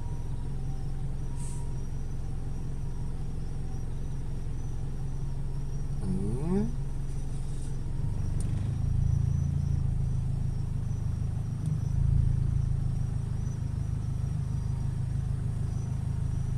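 Car engine idling in stopped traffic, a steady low rumble heard from inside the cabin, swelling from about eight seconds in. In the first few seconds an emergency vehicle's two-tone hi-lo siren alternates faintly, and about six seconds in comes a brief rising whoop.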